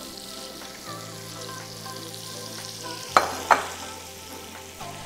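Chicken pieces frying in hot oil in a pan, a steady sizzle, with two sharp knocks about three seconds in.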